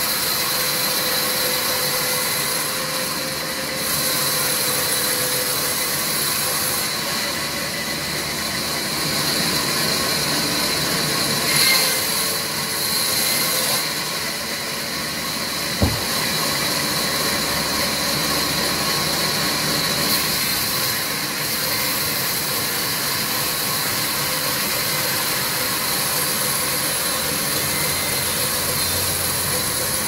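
Large vertical band saw running steadily with a high hiss as a log on the sliding carriage is fed through the blade. A single sharp knock sounds about halfway through.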